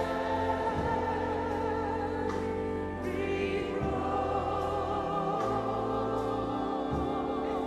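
Choir singing a slow hymn in held chords that change every second or two.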